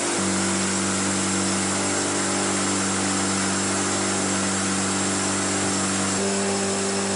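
Engine, most likely a fire engine's pump, running steadily under a constant hiss. Its hum shifts slightly in pitch just after the start and again about six seconds in.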